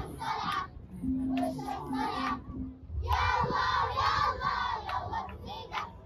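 A group of girls chanting and singing together in short, loud phrases broken by brief pauses.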